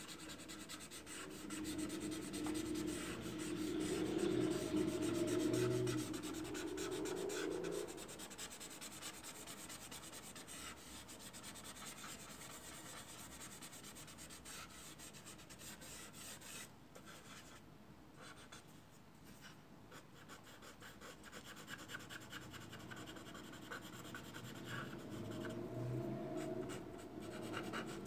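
A soft pastel stick scratching and rubbing in repeated strokes across rough Fabriano soft-media paper as the dark fur is shaded. The rubbing is fullest in the first several seconds, fades for a stretch past the middle, and picks up again near the end.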